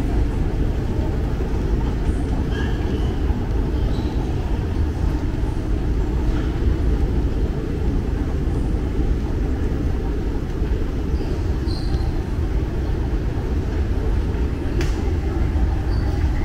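Airport moving walkway running underfoot: a steady low rumble from its tread and drive, with faint concourse noise and a sharp click about fifteen seconds in.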